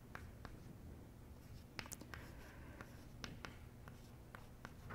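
Faint scattered taps and short scratches of writing on a board, over a steady low room hum.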